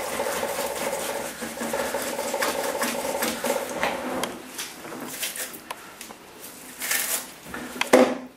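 A paintbrush being worked in a sink: a steady, fast rubbing for about four seconds, then scattered knocks and clatter against the sink, the loudest a sharp knock near the end.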